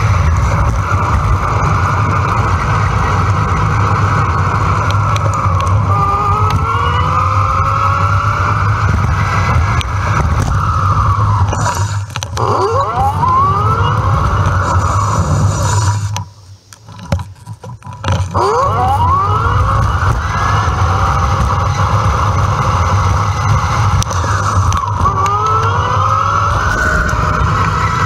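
Wind rushing over the microphone of a handlebar-mounted action camera on a moving electric bike, with road traffic, sped up four times. Several whining tones glide up in pitch, and the wind noise drops away for about two seconds a little past the middle.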